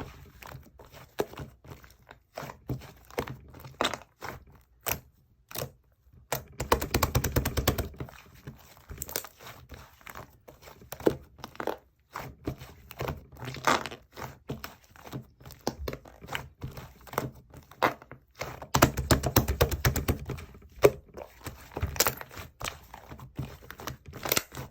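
Slime being kneaded and mixed by hand: a continual run of sticky clicks and small pops, with two denser stretches of crackling, one about a quarter of the way in and one about three quarters of the way in.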